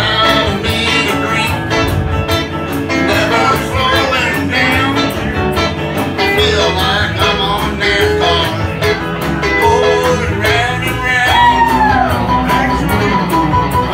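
Live country band playing a song, with electric guitars prominent over a steady beat.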